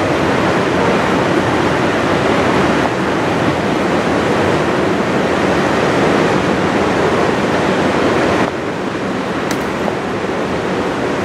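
Steady rushing noise of the fast-flowing Thompson River, mixed with the rolling of loaded coal hopper cars passing along the far bank; it dips a little near the end.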